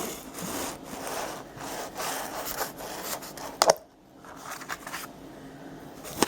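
Rasping, rubbing noise of a takeout food container being handled and opened, with a sharp click a little under four seconds in, after which it goes quieter.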